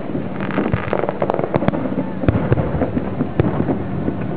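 Aerial fireworks shells bursting in quick succession: a dense run of bangs and crackles, with sharper single bangs a little past two seconds in and again past three.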